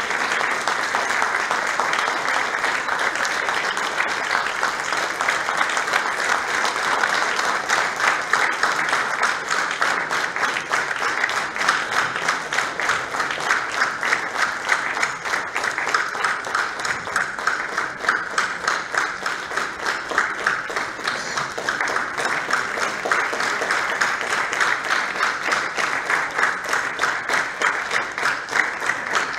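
Audience applauding continuously. In the second half the claps fall into a more even beat.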